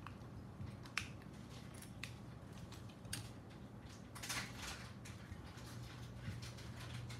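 Light clicks of a drone frame and small hand tools being handled on a work mat, about once a second at first, then a short rustle about four seconds in, over a low steady hum.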